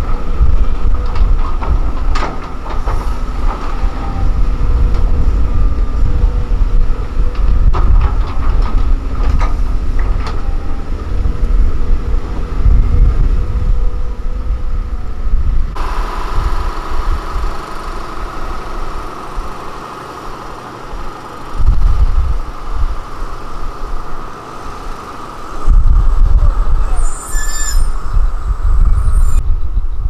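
Motor grader engine running as its blade scrapes through loose soil, with scattered clicks and knocks of stones and a steady whine. About halfway through the sound changes to a loaded dump truck driving on a dirt road, its engine running with a steady whine and two loud surges of deep rumble in the second half.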